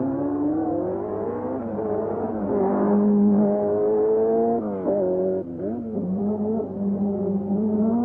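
Rally car engine accelerating hard at high revs. The pitch climbs, drops at each gear change several times, and climbs again.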